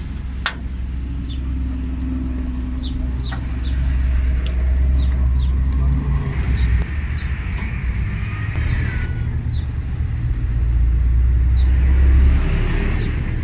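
Low rumble of street traffic, swelling twice as vehicles pass, with short repeated bird chirps above it. A few sharp clicks of the metal spatula on the steel griddle come near the start.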